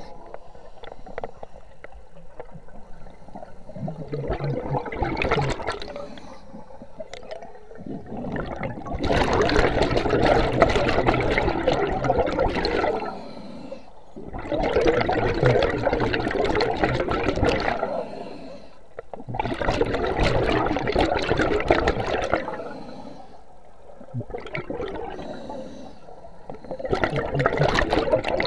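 Scuba regulator exhaust bubbles heard underwater: a loud gurgling rush of bubbles with each exhaled breath, about every five seconds, with quieter gaps while the diver breathes in.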